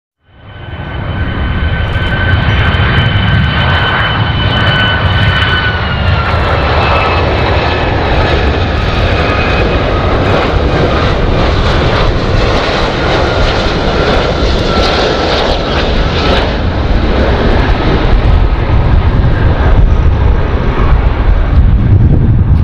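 Boeing 757 jet airliner on final approach: the engines' steady whine, two thin tones that drop in pitch about six seconds in, over a low rumble. It fades in at the start and grows a little louder toward the end.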